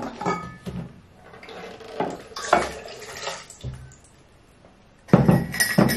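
Water splashing into a white electric kettle as it is filled, with light clicks and knocks of the kettle being handled. A louder clatter comes near the end.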